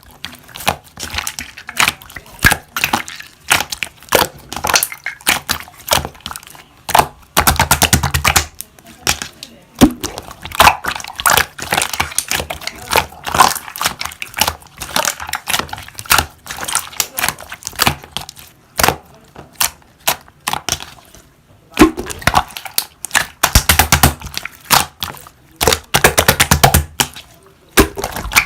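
Slime being squished and pressed by hand, making irregular sharp pops and clicks. Two dense runs of rapid crackling stand out, one about a third of the way in and a longer one near the end.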